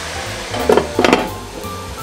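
Glass pan lid set down on a frying pan of sizzling grated zucchini, clattering twice about a second in, over background music. The sizzle grows quieter once the lid is on.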